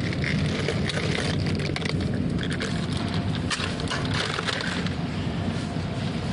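Shopping trolley being pushed over a tiled supermarket floor: a steady rolling rumble from the wheels with many small clicks and rattles of the metal basket.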